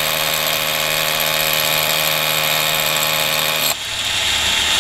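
DeWalt DCH273 20V brushless SDS rotary hammer drilling into a concrete block, with its built-in dust extractor running alongside. The steady motor whine cuts off abruptly about three and a half seconds in.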